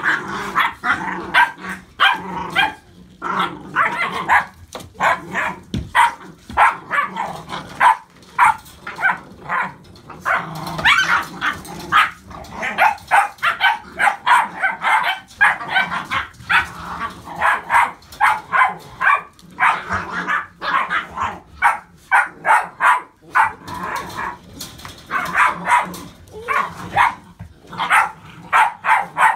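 Young puppies barking in quick, overlapping bursts, several a second, while play-fighting with each other.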